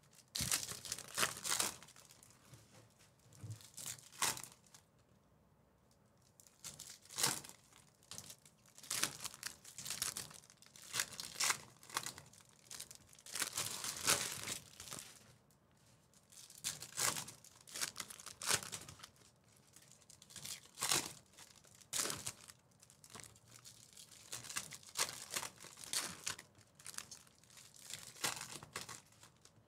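Baseball card packs being torn open, their wrappers crinkling in irregular bursts.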